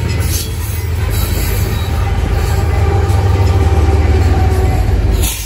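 A train passing close by: a loud, steady low rumble of rolling wheels and cars, with wheel clicks now and then.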